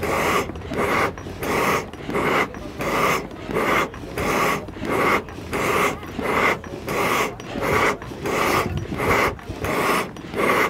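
A pair of leather hand bellows worked in turn, each stroke a breathy whoosh of air, about two a second in a steady rhythm. They are blowing a charcoal hearth up to heat for melting silver in a crucible.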